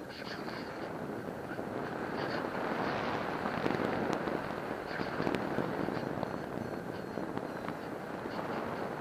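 Airflow rushing over the camera microphone in paragliding flight, a steady rush broken by frequent small crackles and pops.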